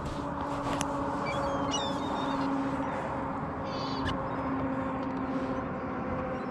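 Seagulls calling a few times in short high cries over the steady hum of the boat's motor, with a couple of sharp clicks.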